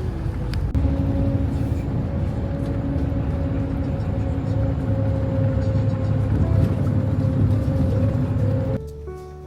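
Strong wind buffeting the microphone in a low, steady rumble under background music. The wind noise cuts off suddenly near the end, leaving the music alone.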